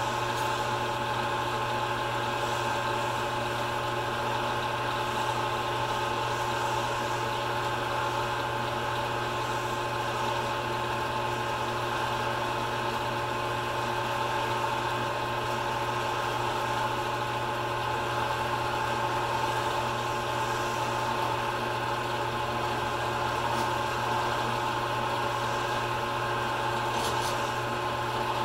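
Small pen-turning lathe running steadily with a constant hum, while a hand-held chisel cuts a spinning acrylic pen blank on a pen mandrel.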